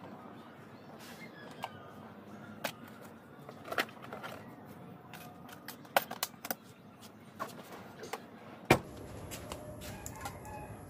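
Scattered light clicks and knocks of a taillight assembly and tools being handled in the open hatch of a car as the taillight is refitted, with one sharper knock near the end.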